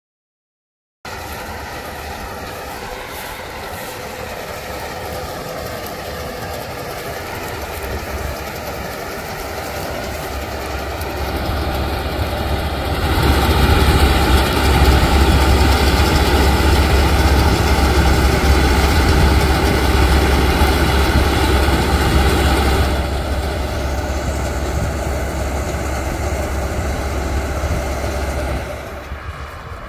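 Laverda M100 AL combine harvester working in standing wheat: the engine and threshing machinery run steadily. The sound grows louder, is loudest for about ten seconds in the middle as the machine passes close, then falls back in two steps near the end.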